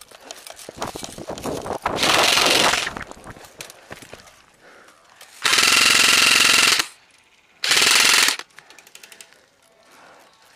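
Airsoft gun firing three full-auto bursts close by, the longest lasting over a second in the middle, after a run of rapid clicks and rattles.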